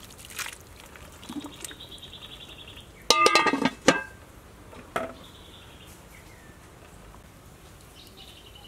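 Metal cooking-pot lid clattering onto the pot about three seconds in, with a short metallic ringing; a single lighter knock follows about a second later.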